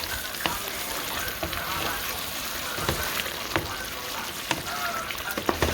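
Chicken and frozen vegetables frying in oil in a pan, a steady sizzle, with scattered sharp clicks.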